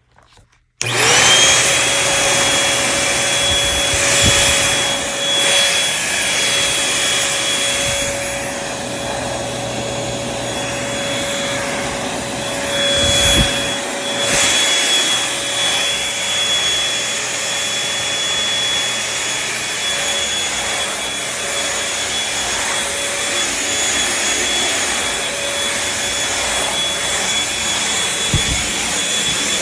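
Bissell 3-in-1 corded stick vacuum switched on about a second in, its motor spinning up at once to a steady whine and running while it is pushed over carpet, the level swelling and dipping a little, with a few brief low knocks.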